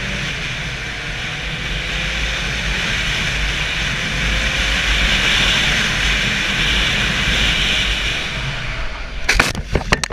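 Steady noise of a moving vehicle: a low rumble under a broad hiss, broken about nine seconds in by a quick run of sharp knocks.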